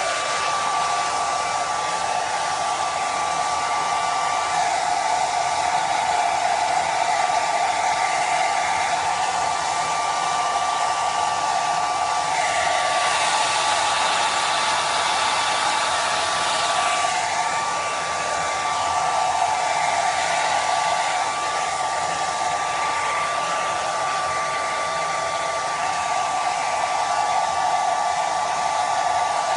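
Handheld hair dryer running continuously, a rush of air with a steady whine in it, blowing onto a pug's coat to dry it after a bath. The rush brightens a little about midway as the dryer is moved about.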